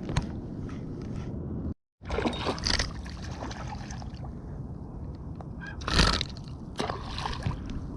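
Water sloshing and splashing against a kayak over a steady low rumble. There are a few brief splashes, the loudest about six seconds in, and the sound drops out for an instant just before two seconds.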